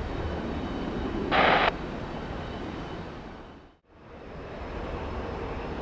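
Steady aircraft engine noise at the airport, with a brief burst of air-traffic-control radio static about one and a half seconds in. The sound fades out and back in shortly after the middle.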